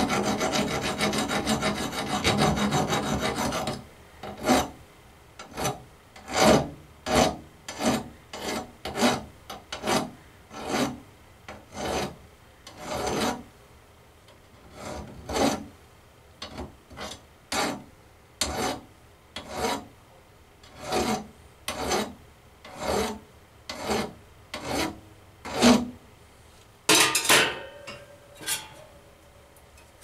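Ratchet wrench clicking as a bolt is worked on an evaporator fan motor mount: a fast run of clicks for the first few seconds, then a long series of short ratcheting strokes about every half second to a second, with a louder scrape near the end.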